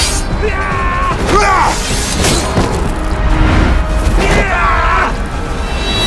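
Battle soundtrack: dramatic score under men's shouts and yells, with sharp clashes and impacts of weapons scattered through it.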